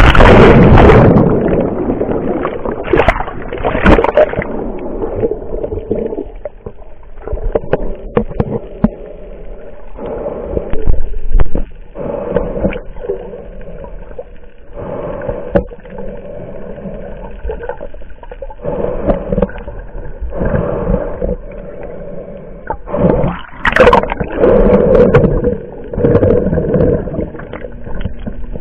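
Muffled water sloshing and gurgling heard through an action camera's waterproof housing, at the surface and underwater. It comes in uneven rushes and bumps, loudest at the very start and again about two-thirds of the way through.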